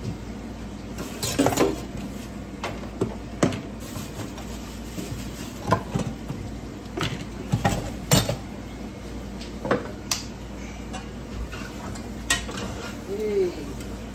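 A spoon clinking and scraping against a large metal pan as seafood is stirred in it: irregular clanks about once a second over a steady low hum.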